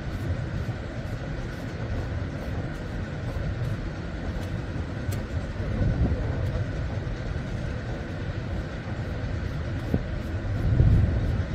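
Steady drone of ship's machinery with a low rumble, swelling slightly near the end.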